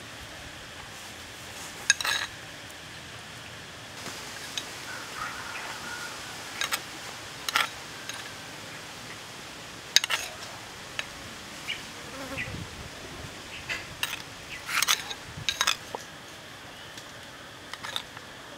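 A metal spoon clinking against clam shells and a small sauce bowl as chili sauce is spooned into clams grilling over charcoal, in scattered sharp clicks, a cluster of them about three-quarters through. A short low buzz comes about two-thirds through.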